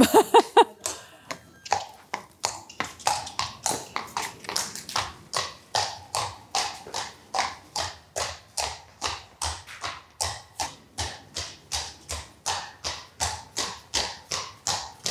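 Horse's hooves striking paving at a trot in hand: an even train of sharp beats, about three a second, mixed with the handler's jogging footsteps. It is a lameness trot-up after a nerve block of the right front fetlock.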